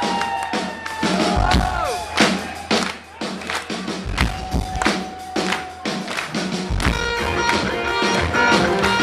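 Live rock band through a small camcorder's microphone: loose, scattered drum-kit hits with bending, gliding high notes over them for the first couple of seconds, then electric guitars come in with steady chords from about seven seconds in as the band plays together.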